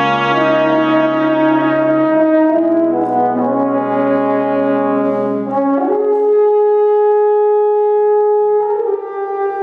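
Brass quintet playing a slow, chordal passage in sustained harmony. About six seconds in the low parts drop out and one long held note carries over a thinner accompaniment.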